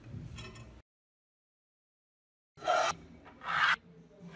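Rusty parts of a dismantled adjustable wrench scraped and set down on a hard work surface: two short, loud scrapes less than a second apart, after about two seconds of dead silence.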